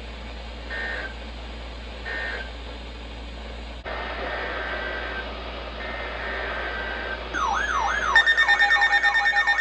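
Emergency Alert System data tones: two short two-pitch screeching bursts about a second and a half apart close out the spoken warning. After a cut, two longer bursts of the same two pitches open the next alert. Near the end a loud alert tone starts, sweeping down in pitch over and over, with a steady high tone joining it about a second later.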